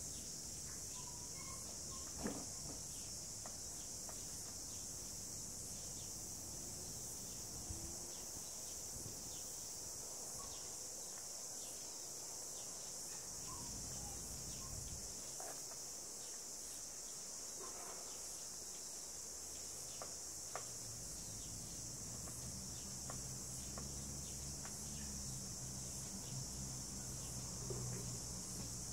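A steady, high-pitched chorus of insects shrilling outdoors, with a few faint clicks. A low hum joins in about two-thirds of the way through.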